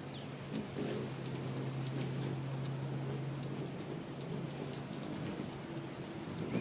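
A small bird giving rapid, very high-pitched chirps and clicks in quick clustered trains. A steady low hum runs underneath and stops a little past halfway.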